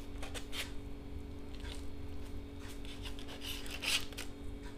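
Kitchen knife cutting through a firm slab of set Maggi noodles on aluminium foil: irregular rasping scrapes as the blade works through, the loudest about four seconds in.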